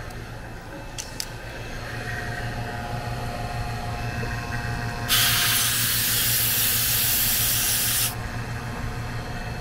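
R-410A refrigerant gas hissing out at the gauge manifold's charging hose for about three seconds, starting and stopping abruptly. A vacuum pump hums steadily underneath.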